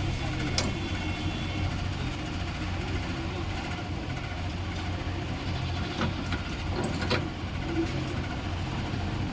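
Ceiling fan running with a steady low hum, with a few sharp clicks about half a second in and again around six and seven seconds in.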